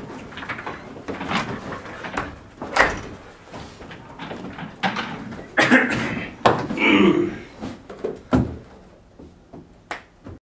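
Irregular knocks, bumps and sharp clicks, some loud thumps among them, of things being handled and a door opening or closing.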